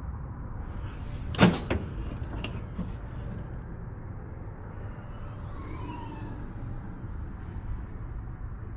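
Ford Focus ST hatchback latch releasing: a sharp double click about a second and a half in, followed by a few light knocks, over a steady low hum.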